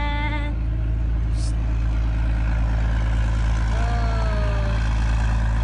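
Steady low rumble of road traffic, with a short high voice in the first half second and a brief falling tone a few seconds in.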